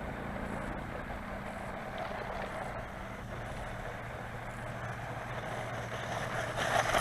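1:16-scale four-wheel-drive RC monster truck driving under throttle: its electric motor and drivetrain give a steady hum over a rushing noise, growing louder near the end.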